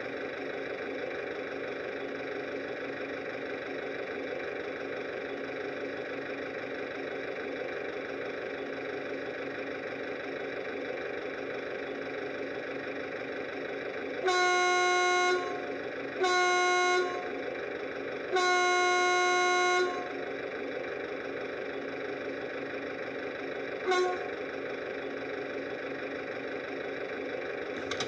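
Model railway DCC sound decoder playing a 1930s diesel railcar sound through the model's small speaker: the engine idles steadily. About 14 s in, the horn sounds three times, short, short, then long, and it gives one brief toot near the end.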